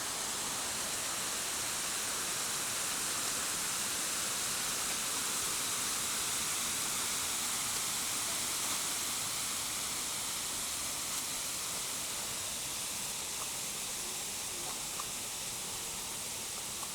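Waterfall's rushing water, a steady hiss-like roar strongest in the high range, easing slightly in the second half, with a few faint ticks late on.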